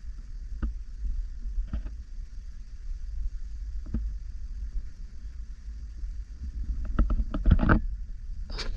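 Wind buffeting the camera microphone with a steady low rumble, broken by a few light knocks and rustles that bunch together near the end.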